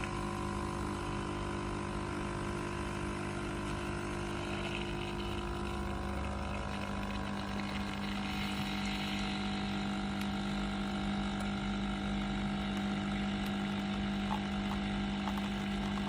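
The 19-bar pump of a BioloMix capsule espresso machine running steadily as it brews: a loud, even buzzing hum with a hiss above it.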